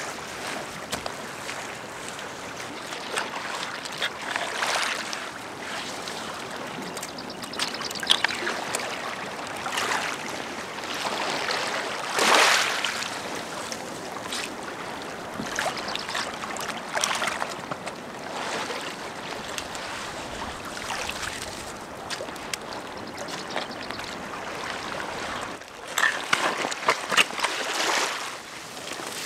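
Water lapping and splashing on a rocky sea shore, with stones and gravel clicking as they are handled. Near the end, louder splashes and clicks as wet clay is scooped by hand from a water-filled hole.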